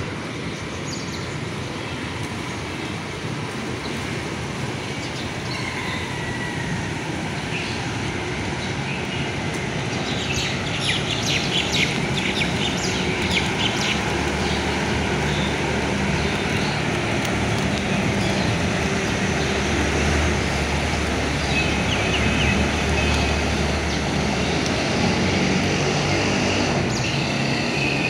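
Light rain with birds chirping now and then, most around the middle, over a steady low rumble that slowly grows louder.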